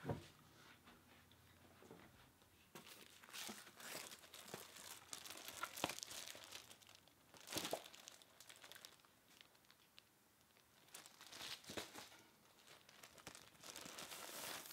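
Clear plastic wrapping crinkling as it is handled, in several bursts of rustling, with a single sharp knock right at the start.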